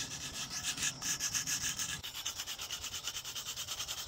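A black drawing stick scribbled quickly back and forth on a rough concrete road surface to shade in a large dark area. It makes a scratchy rasping sound in rapid, even strokes, about seven a second.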